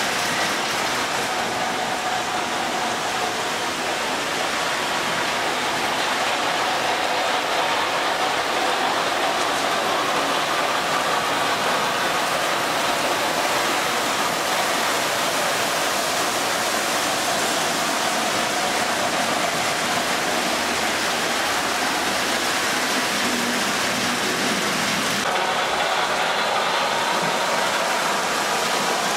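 O gauge three-rail model trains, among them Lionel F3 diesels hauling passenger cars, running on the layout: a steady whir of wheels on rail and electric motors. The higher hiss drops off about 25 seconds in.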